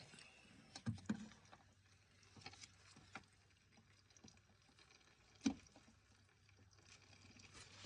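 Near silence with a faint low hum, broken by a few sharp knocks and clicks: two close together about a second in and a louder one about five and a half seconds in.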